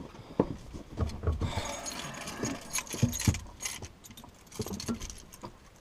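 A string of irregular knocks and clicks with light rattling, as from things being handled and jostling inside a car.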